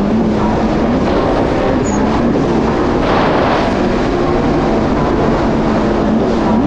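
Yamaha GP1800R SVHO jet ski's supercharged four-stroke engine running steadily while cruising, its engine note mixed with a steady rush of water and wind.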